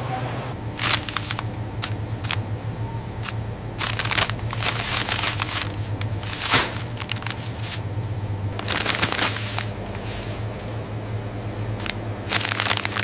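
Rustling and crinkling of paper and cardboard packaging being handled, in irregular short bursts, the sharpest about halfway through, over a steady low hum.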